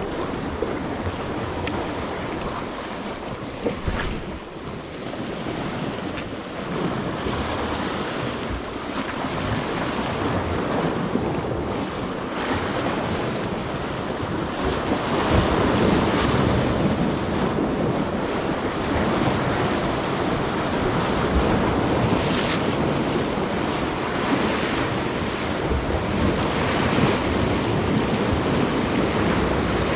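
Waves breaking and washing against a rock jetty, with wind buffeting the microphone. The surf grows louder about halfway through.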